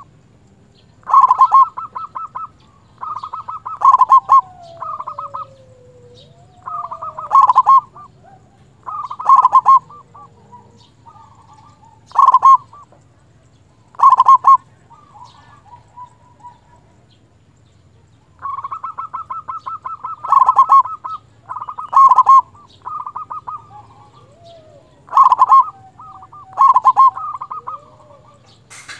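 Zebra dove (perkutut) cooing over and over, each phrase a quick run of short notes ending in a loud, deep coo. The phrases come every second or two, with a pause of a few seconds past the middle.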